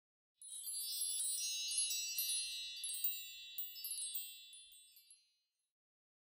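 Intro sound effect of high, tinkling chimes, like a wind chime or bell tree, with many overlapping strikes ringing on. It starts about half a second in and fades out around five seconds in.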